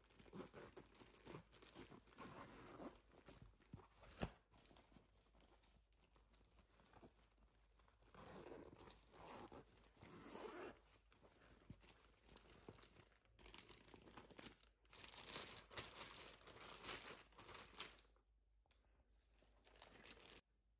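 Faint rustling of a cloth garment bag being unzipped and opened by hand, coming in several bursts and dying down near the end.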